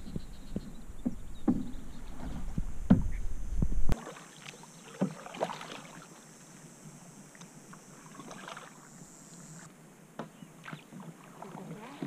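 Canoe paddles dipping and splashing in river water as the canoe is paddled. The first four seconds are louder, with a low rumble under the strokes; after that the strokes are quieter and fewer.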